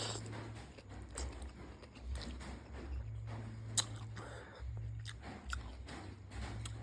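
A person chewing and eating noodle soup close to the microphone, with scattered sharp clicks, the loudest about four seconds in.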